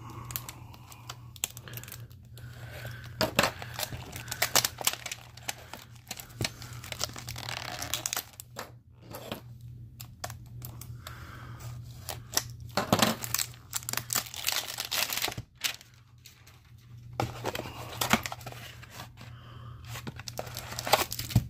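Plastic wrap being crinkled and torn off a cardboard trading-card hanger box, in irregular scratchy tearing strokes and crackles, with the cardboard box being handled and opened.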